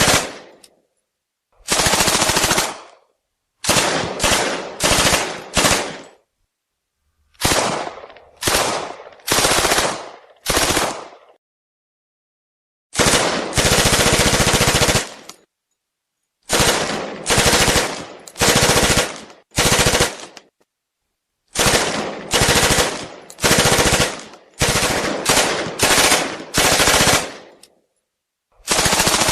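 Thompson 1928A1 submachine gun in .45 ACP firing full-auto in short bursts. There are about twenty bursts, each from half a second to two seconds long, with brief silent pauses between them. The longest burst comes about halfway through.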